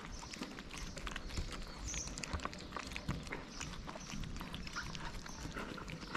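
Two stray cats eating cat food from plastic tubs close up: an irregular run of small smacking and crunching clicks as they chew.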